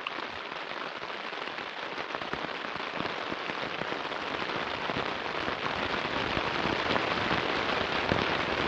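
Rain falling on a tent canopy overhead, a dense crackle of drops that grows steadily louder.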